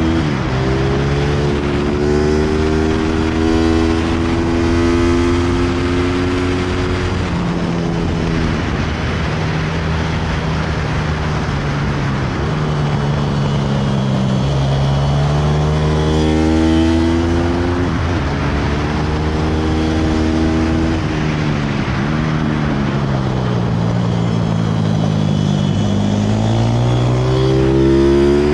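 Pit bike engine running hard around a track, with wind noise rushing past. Its note climbs under acceleration, steps down suddenly at gear changes and sinks as the throttle closes for corners.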